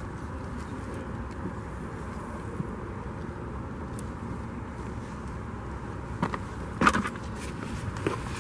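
Steady low outdoor rumble with a few sharp knocks about six, seven and eight seconds in; the one near seven seconds is the loudest.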